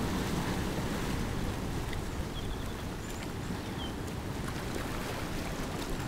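Sea surf washing in and out among shoreline boulders, a steady, low wash of moving water. A few faint, short high chirps sound around the middle.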